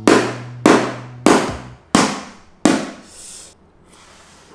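A wooden stick striking a cooked lobster claw five times, about two-thirds of a second apart, cracking the shell open.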